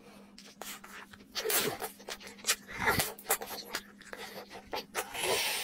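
Eating sounds of long, sauce-coated tteokbokki rice cakes: wet slurping and sucking as they are drawn into the mouth, and chewing with many small smacking clicks. There are louder slurps about one and a half seconds and three seconds in, and a hissing suck near the end.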